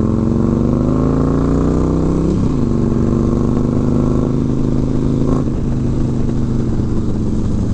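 Harley-Davidson FLHT's Twin Cam V-twin through a Vance & Hines Pro Pipe exhaust, heard from the rider's seat: it revs up under acceleration, drops sharply in pitch about two and a half seconds in as a gear is changed, then runs steadily at cruising speed.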